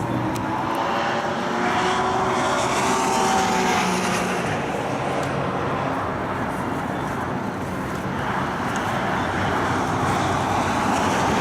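Cars driving past at speed, engine notes and a rushing sound of tyres and air swelling as each passes, about two to four seconds in and again from about eight seconds in.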